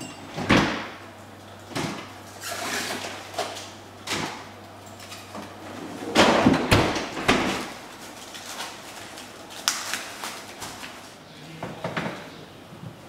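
A string of short kitchen handling noises: plastic cling wrap pulled from its roll and crinkled around bagged frozen king crab legs, plastic bags rustling, and refrigerator door and drawers opening and closing. The loudest stretch comes a little past the middle.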